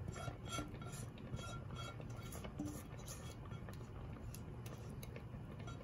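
Milk with rasmalai balls boiling in a pot, bubbling with many small irregular pops and ticks over a low steady rumble.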